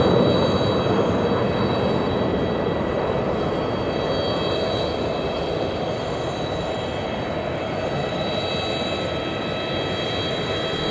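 Airbus A320-232's IAE V2500 turbofan engines running at low taxi thrust: a steady jet rush with a high fan whine over it, easing slightly in the first two seconds and then holding steady.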